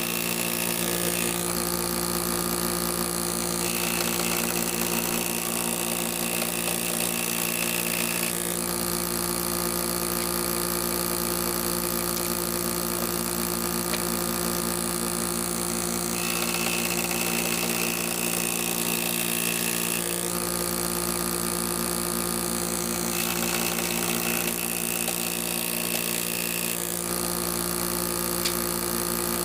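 A power tool's motor running steadily with a constant hum, the higher part of the noise changing every few seconds.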